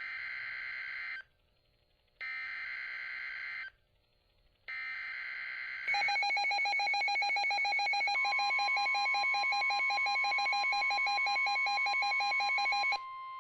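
Emergency Alert System SAME data header on NOAA Weather Radio: three short bursts of digital data tones, each about a second long, with about a second of silence between them. Then comes a loud alarm of rapidly pulsing tones that stops abruptly near the end. About two seconds into the alarm, a steady weather-radio alert tone near 1 kHz comes in under it and keeps sounding after the alarm stops.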